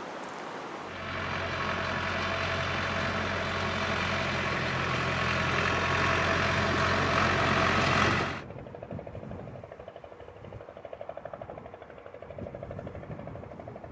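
Farm tractor engine running steadily close by, growing a little louder, then cutting off suddenly about eight seconds in.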